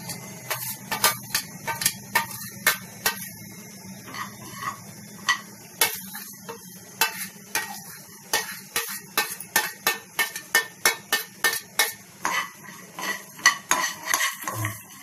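Spatula stirring and scraping against a pan while peanuts, coriander, sesame, cumin and other whole spices roast in it: an irregular run of sharp scrapes and clinks, two or more a second.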